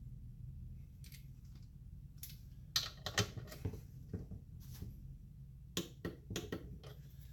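Irregular light clicks and taps of hand tools and small metal parts being handled while bolting a vacuum pump back together, over a low steady hum.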